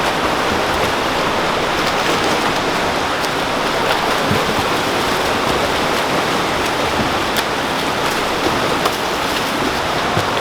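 Pool water splashing and churning as swimmers race through a practice set, a steady wash of noise with faint ticks.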